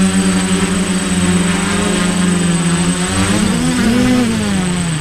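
Quadcopter's electric motors and propellers (a Flame Wheel 450 frame) buzzing loudly at a steady pitch. About three seconds in, the pitch wavers up and down, and near the end it falls.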